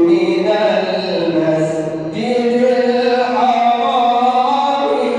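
A male reciter chanting the Quran in melodic tajweed style, drawing out long held notes that slide and ornament in pitch. One phrase ends about two seconds in and the next begins.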